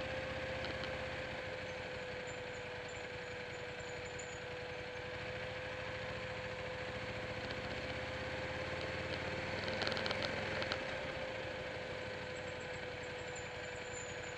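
Motorcycle engine running steadily at low revs, with a short cluster of clicks about ten seconds in.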